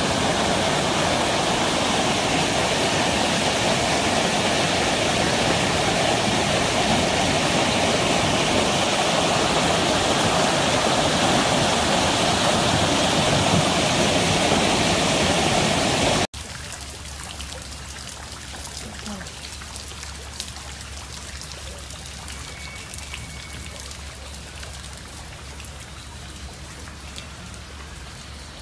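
Heavy rain and hail falling on a street: a loud, steady hiss. About 16 s in it cuts to a much quieter patter of rain with scattered faint ticks.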